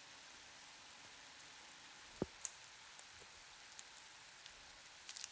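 Faint, steady sizzling of vegetables and tomatoes cooking in a frying pan, with a couple of sharp ticks about two seconds in.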